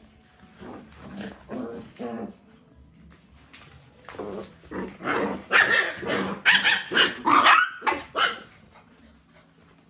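Two puppies, a Bhotia and a Labrador, barking and growling as they play-fight. A few softer short calls come in the first couple of seconds, then a louder, quicker run of barks from about five to eight and a half seconds in.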